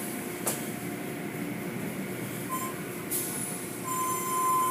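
Automatic tunnel car wash running: water spraying and cloth brushes working over a vehicle make a steady rushing noise. A brief hiss comes about three seconds in, and a steady high tone sets in near the end.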